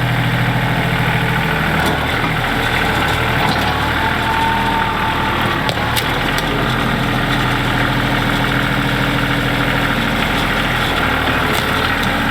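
Vehicle engine running at idle, its low note changing about a second and a half in.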